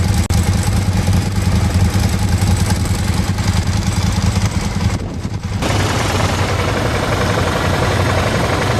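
An engine running steadily with a low, even drone, with a brief dip about five seconds in.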